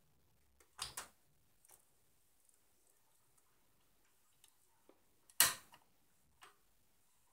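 Handling noise: a few sharp clicks and knocks of hard objects, a close pair about a second in and the loudest about five and a half seconds in.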